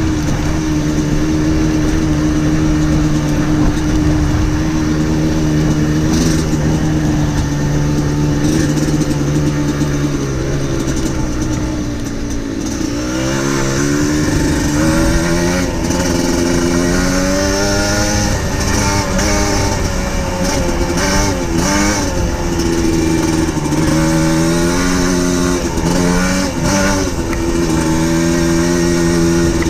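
Trail motorcycle engine running at a steady pitch, then easing off about twelve seconds in and repeatedly rising and falling in pitch as the throttle is opened and closed, over a steady rush of wind noise.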